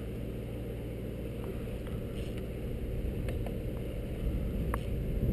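A boat's outboard motor running steadily at an even speed, with a few faint clicks over it.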